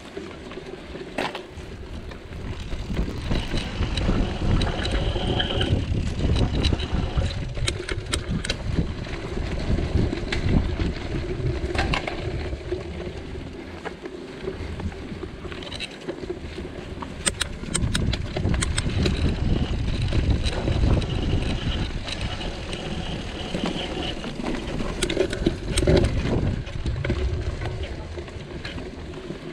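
Mountain bike riding over a rough, leaf-covered dirt trail: a continuous low rumble from tyres and wind on the microphone, swelling and easing, with scattered clicks and rattles from the bike.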